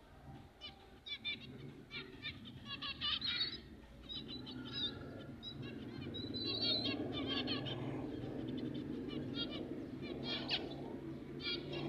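Baby finches chirping in quick runs of short, high calls, over a low steady background noise that grows louder after about four seconds.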